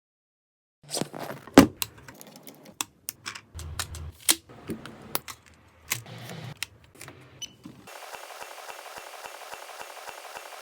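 A run of irregular sharp clicks and clacks, typewriter-like, for about seven seconds. About eight seconds in it gives way to a steady, evenly ticking buzz.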